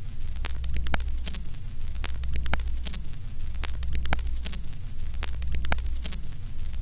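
Crackling static over a steady low electrical hum, with irregular sharp clicks and short falling tones repeating about twice a second.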